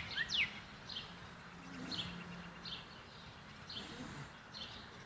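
A bird calling a series of short, quickly falling chirps; the first two are the loudest and the rest come fainter and irregularly.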